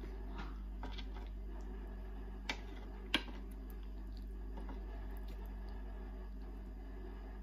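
Close-up eating sounds: wet clicks and smacks while a person chews lightly salted mackerel picked apart by hand, with two sharper clicks about two and a half and three seconds in. A steady low hum sits under it.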